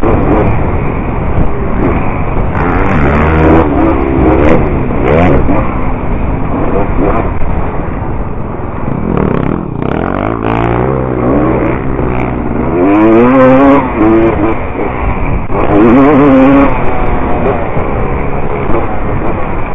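Motocross dirt bike engine running hard under the rider, its pitch climbing again and again as it accelerates and dropping each time the throttle closes, heard from a camera mounted on the bike.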